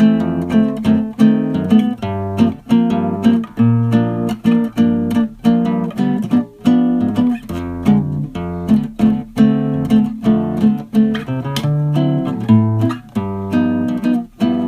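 Background music: a guitar plucking a quick, steady run of notes.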